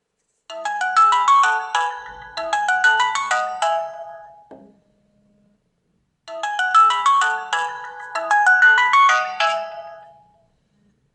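Samsung Galaxy S2 alarm tone playing through the phone's speaker: a quick melody of short notes about four seconds long, heard twice with a short pause between.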